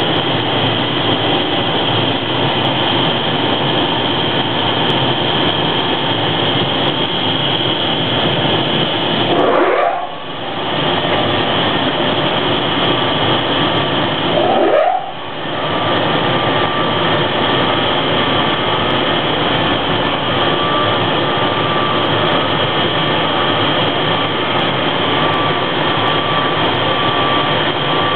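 Auxiliary machinery in the engine room of an HŽ series 1061 electric locomotive, running with a steady loud whir. Twice, about ten and fifteen seconds in, a tone sweeps upward and the noise drops out for a moment before coming back.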